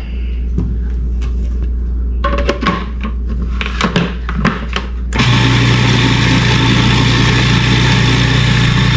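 Clicks and knocks of a food processor's bowl and lid being handled, then about five seconds in its motor starts and runs steadily at high speed, processing garlic for toum (garlic sauce).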